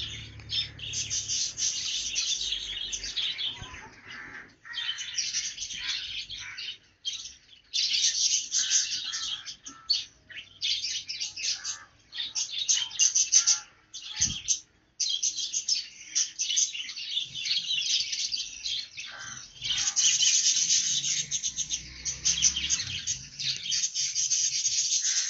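Many small birds chirping and twittering together in a dense, continuous chatter, broken by a few short lulls.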